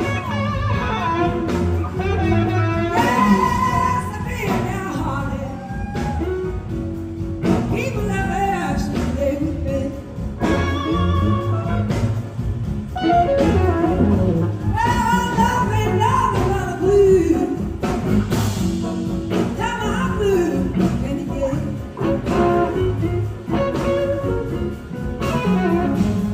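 Live blues-rock band playing, with a bending electric guitar lead over bass and drums.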